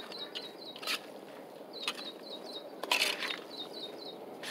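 Hands working the overnight-soaked chicken feed: a few short crunching scrapes, about a second apart, loudest near the end, while small birds chirp in quick runs of high notes.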